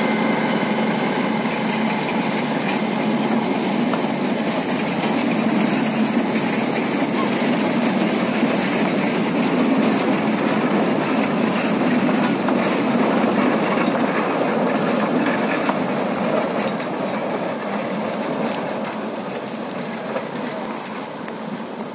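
Narrow-gauge LÁEV forest railway train rolling past, its diesel locomotive hauling a string of passenger carriages, wheels running on the track. The engine hum is heard at first as the locomotive goes by, then the carriages roll past and the sound fades over the last few seconds as the train moves away.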